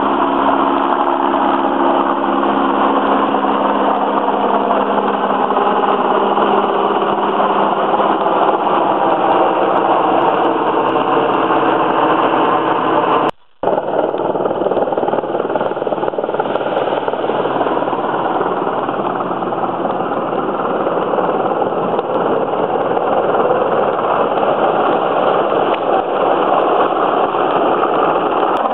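Sikorsky Sea King rescue helicopter flying overhead: a steady, loud drone of its rotors and twin turbine engines, with a low hum that fades over the first half. The sound cuts out briefly about halfway through.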